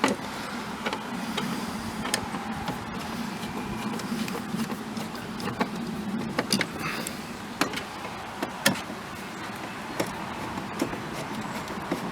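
Scattered light clicks and knocks of plastic trim pieces and metal clips being handled and fitted in a car door, about ten in all, over a steady low hum.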